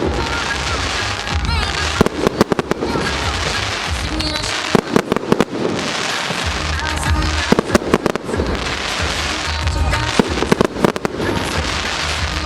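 Fireworks going off: clusters of sharp bangs and crackles every two to three seconds over a steady hiss.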